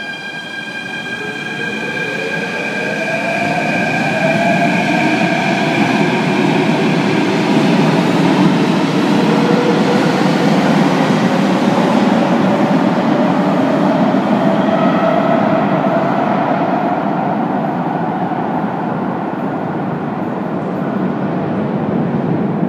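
Athens Metro train pulling away: its motor whine climbs in pitch as it speeds up, and the rumble of the wheels swells, then slowly eases off as it goes.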